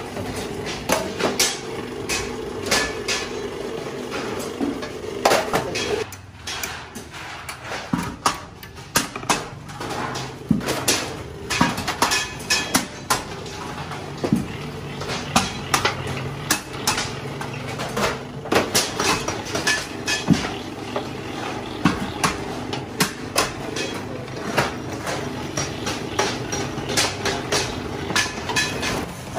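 Thin galvanized sheet-metal bucket bodies clanking and rattling as they are handled and set down, with many irregular sharp knocks. A steady machine hum runs under them and stops about six seconds in, with a lower hum later.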